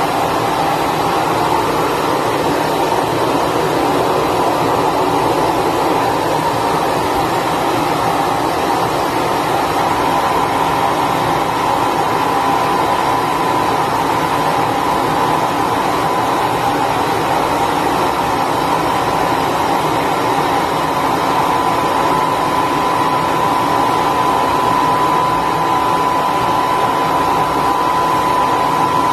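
Hair dryer running steadily on the floor, blowing air to dry a wet cat after its bath, with a faint steady whine over the rush of air.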